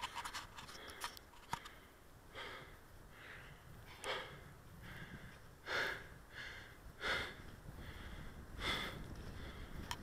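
A walker breathing hard, about five loud breaths roughly every second and a half, with faint crunching footsteps on snow.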